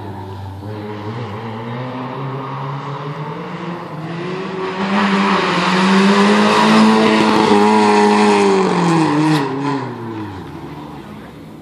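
A rally car's engine running hard as the car approaches and passes, growing loudest in the middle. Near the end the engine note drops in pitch and fades as the car pulls away.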